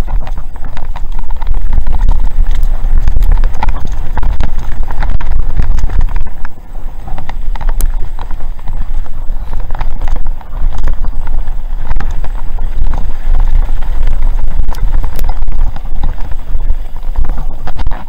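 Mountain bike riding fast down a rocky gravel trail: heavy wind buffeting on the microphone over the crunch of tyres on loose stone, with frequent rattles and knocks from the bike over rocks. The rumble eases briefly twice, about six and a half and ten and a half seconds in.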